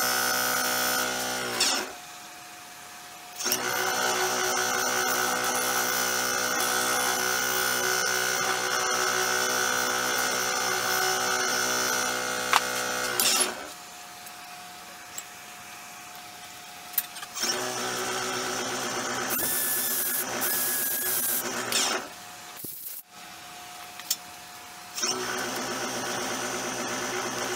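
Nova Galaxi DVR wood lathe motor running with a bowl turning on it, a steady machine hum with a whine. The hum drops away and comes back three times, its pitch falling as it fades at the first two drops.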